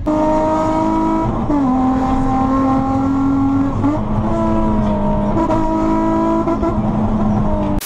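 Sports car engine running at high revs under hard acceleration, its pitch dropping sharply at gear changes about one and a half and four seconds in.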